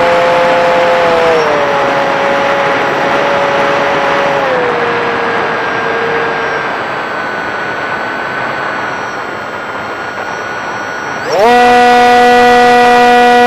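Onboard sound of an RC airplane's motor and propeller: the whine steps down in pitch twice as the throttle is eased back, leaving rushing air as the plane glides in. About eleven seconds in the motor spools up quickly to a loud, steady full-power whine.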